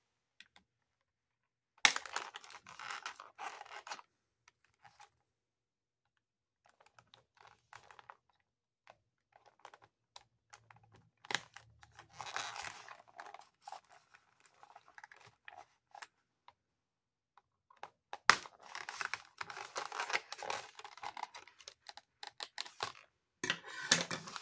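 Clear plastic doll packaging crinkling and crackling in irregular bursts as it is handled and cut open with scissors, with a few sharp clicks and snaps among them.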